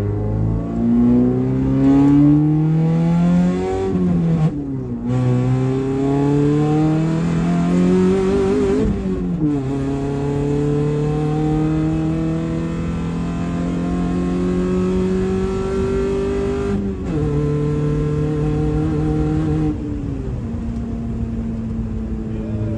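1994 Honda Civic's four-cylinder engine accelerating through the gears of its manual transmission: the engine note climbs, falls sharply at two upshifts in the first ten seconds, then holds steady at cruising speed before stepping down twice near the end as the car eases off.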